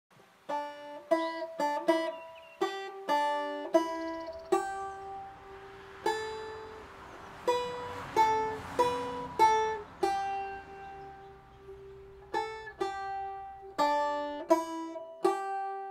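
Banjo played slowly: a plucked melody of single notes, each struck sharply and left to ring out, with short pauses between phrases.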